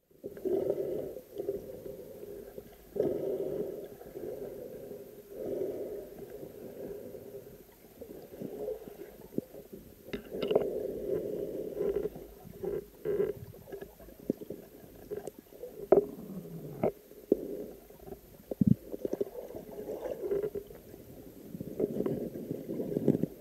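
Muffled underwater sound picked up by a camera in its housing: irregular gurgling and sloshing of river water with scattered knocks and clicks as a diver moves through water plants and handles his gear.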